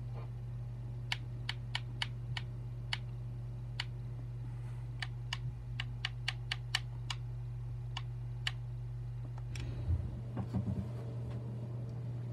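Light, sharp clicks at an uneven pace, about twenty of them, like typing on a keyboard, over a steady low hum. A few soft low bumps come about ten seconds in.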